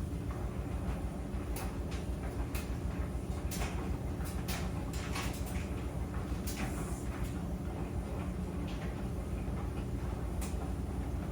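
Clothes dryer running: a steady low rumble from the turning drum, with irregular clicks and knocks as the load tumbles.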